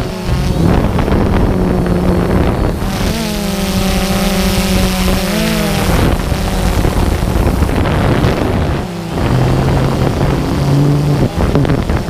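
Multirotor drone's motors and propellers humming steadily, the pitch shifting as it manoeuvres, with wind rushing over the microphone.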